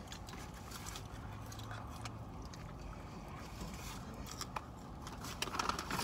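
Quiet eating sounds: chewing, with scattered small clicks and scrapes of a spoon against a cup, more of them near the end.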